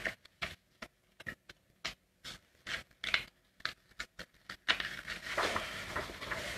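Hands handling a book and its pages on a table: a string of light, irregular scrapes and taps, then a longer rustle starting near the end.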